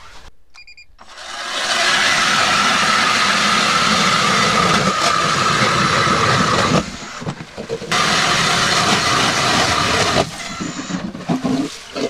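Cordless electric ice auger boring through lake ice, its motor running with a steady whine as the blades cut. It makes one run of about five seconds starting about a second in, stops briefly, then runs again for about two seconds.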